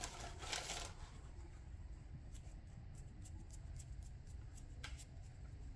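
Small sealed ball bearing from a golf cart motor spun by hand between the fingers, giving only a faint, smooth spin with scattered light ticks, as a sound comparison between a new bearing and a worn one. A brief rustle of handling opens it, and a sharper click sounds near the end.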